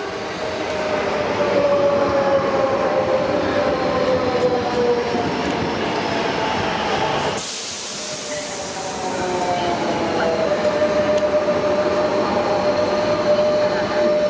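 Renfe class 447 electric multiple unit running past along the platform: a steady electric whine slowly falling in pitch over the first few seconds, over the rumble of wheels on rail. The sound shifts abruptly about seven seconds in, and the whine holds at a steady pitch near the end.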